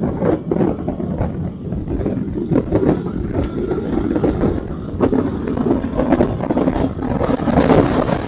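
Motorcycle engine and exhaust running under way, a fast pulsing rumble that gets louder near the end.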